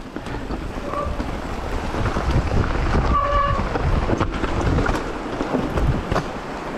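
Wind buffeting the microphone while a mountain bike rolls over loose rock, its tyres crunching and the frame rattling, with a few sharp knocks from rocks.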